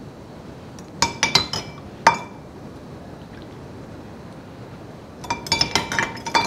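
Metal ladle clinking against a glass bowl while sauce is scooped out: a few quick ringing clinks about a second in, a single one a moment later, then a denser run of clinks near the end.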